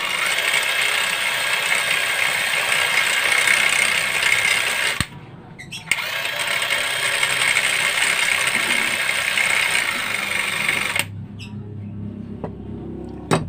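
Cordless drill running at speed, spinning a small part against a sandpaper disc to sand it down to size, with a steady abrasive hiss. It runs about five seconds, stops for about a second, runs again, then stops about three-quarters of the way through, leaving a faint low hum and a click near the end.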